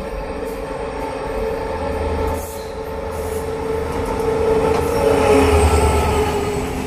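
Passenger train running along the track, heard from on board: a steady rumble of wheels on rail with a pitched whine over it, growing louder about four to six seconds in.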